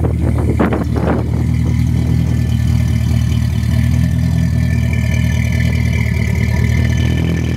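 1978 Porsche 928's V8 idling steadily, heard from behind the car at its twin exhaust tips, with a few short knocks in the first second.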